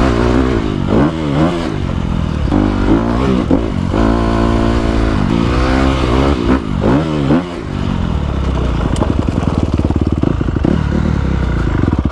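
Honda dirt bike engine being ridden, its revs rising and falling several times as the throttle is worked. From about eight seconds in it settles to a steady, lower, rapid putter.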